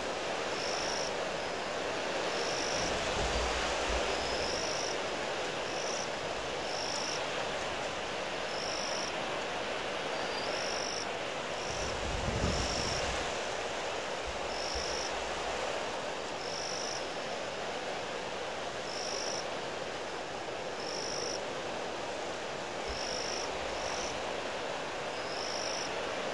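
Strong wind blowing over the waterhole webcam's microphone as a steady rush, with low gusts swelling about three seconds in and about twelve seconds in. Throughout, a short high chirp repeats about once a second.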